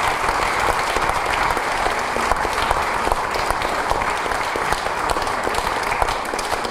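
Audience applauding steadily: a dense patter of many hands clapping, easing slightly near the end.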